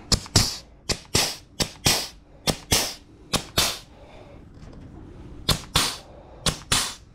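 Pneumatic grease gun cycling: sharp pops in pairs, about one pair a second, with a break of over a second in the middle. It is forcing grease into a front caster wheel's grease fitting, a wheel that keeps taking grease and that the mechanic bets has never been greased.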